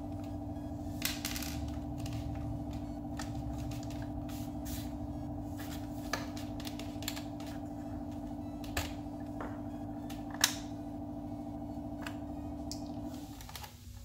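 Plastic clicks and taps as a GM truck climate control panel is unclipped and handled, the loudest a sharp snap about ten and a half seconds in. Under them a steady hum runs and stops shortly before the end.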